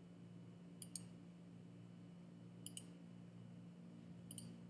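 Three soft computer clicks about two seconds apart, each a quick double tick like a button pressed and released. A faint steady electrical hum lies under them.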